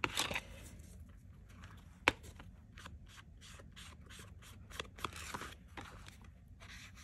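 Ink being rubbed in short, quick strokes along the edges of a paper collage piece, with one sharp tap about two seconds in.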